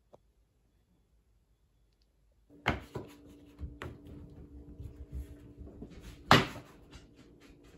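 A couple of seconds of near silence, then the knocks, clicks and scuffs of sandals being put on and footsteps on a wooden floor, the loudest a single thump about six seconds in.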